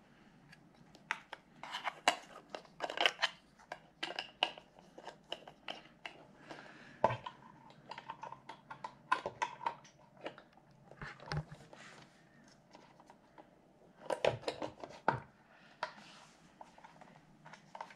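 Irregular clicks and clinks of quilting-machine parts and fittings being handled and fitted together, in clusters with a quieter stretch about two thirds of the way in.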